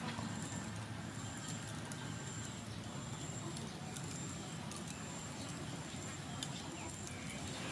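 Faint outdoor background: a high, thin chirping repeating about once a second over low steady noise, with a few soft clicks.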